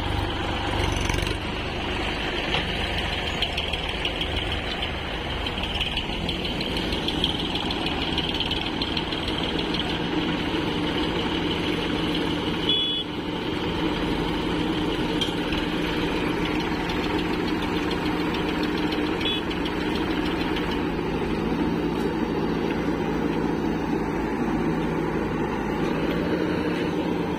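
Diesel engines running steadily: a Sonalika DI 740 tractor hauling a loaded trailer, then, after a short break about halfway through, a JCB 3DX backhoe loader working its bucket beside the tractor.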